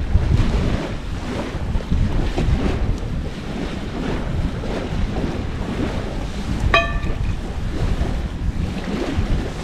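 Wind buffeting the microphone as a steady low rumble, with faint scattered clicks. A brief pitched call or tone sounds about seven seconds in.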